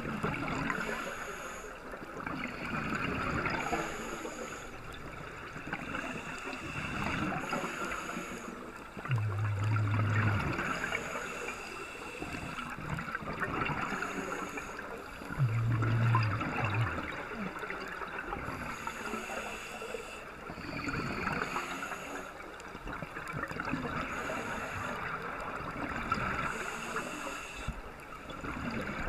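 Scuba regulator breathing heard underwater: exhaled bubbles gurgling and hissing in a slow rhythm, swelling every three to four seconds. A low hum sounds twice, about nine and about fifteen seconds in.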